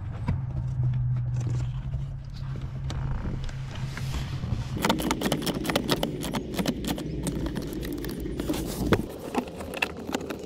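Hands working plastic parts of a Tesla Model 3's cabin air filter housing and trim: light clicks and scrapes, turning into a dense run of clicks from about halfway through, over a steady low hum.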